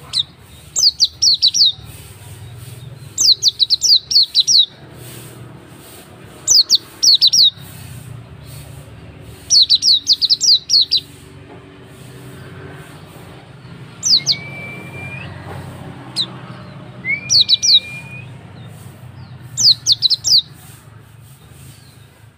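Hume's white-eyes (pleci auri) calling in bursts of rapid, high chirping notes every two to three seconds. Two short, clear whistles come between the bursts in the middle. A low steady hum runs underneath.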